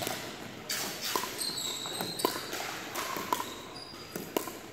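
Pickleball paddles striking a plastic pickleball back and forth in a rally: a run of sharp pops about half a second to a second apart.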